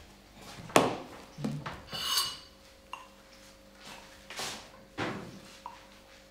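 Dishes and cutlery being handled: a few scattered knocks and clinks, the loudest a sharp knock under a second in, with one ringing clink about two seconds in.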